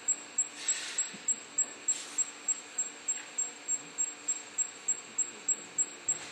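Indutherm VC 650 V casting machine giving a high-pitched tone that pulses evenly about three times a second while its crucible melts a charge of metal grains, with faint hiss twice in the first two seconds.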